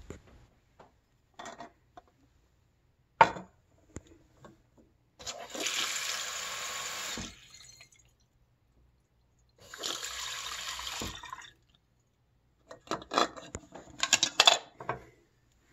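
Bathroom sink tap running twice, about two seconds each time, pouring water through a plastic funnel into a terra cotta carafe. A sharp knock comes about three seconds in, and a quick run of knocks and clicks near the end as the clay pot and funnel are handled in the sink.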